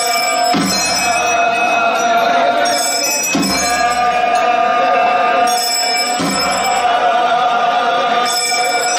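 Hindu temple aarti: priests chanting together over continuously ringing hand bells, with a low drum stroke about every three seconds.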